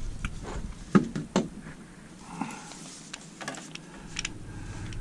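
Handling noise on a fiberglass boat hard top as a corded drill with a spade bit is picked up: scattered clicks and knocks, two sharper ones about a second in. The drill does not run: it has no power.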